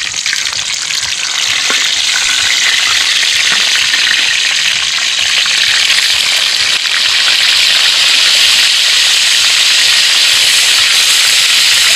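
Fish frying in hot cooking oil in a pan: a steady, dense sizzle that grows louder about two seconds in.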